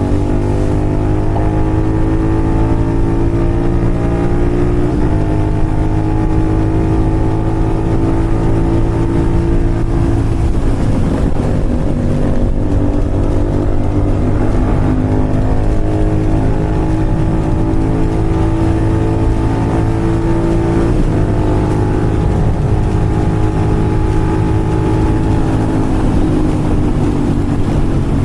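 Royal Enfield Continental GT 650's parallel-twin engine with an SS Moto slip-on exhaust, running steadily under way on the road. Its pitch drifts gently and steps several times along the way.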